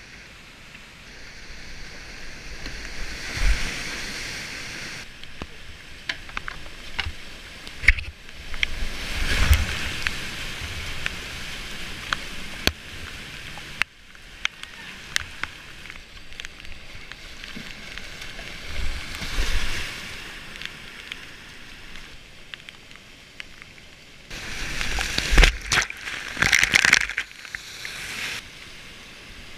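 Whitewater rushing and splashing around a kayak running rapids, heard close from a camera on the boat. The water swells into louder surges of spray several times, with scattered sharp slaps and clicks of water and paddle strokes.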